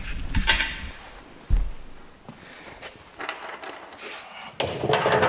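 Handling noise from a plastic garbage can being worked on top of a metal barrel: a few low thumps and clicks in the first couple of seconds, then scuffing and cloth rustling close to the microphone near the end.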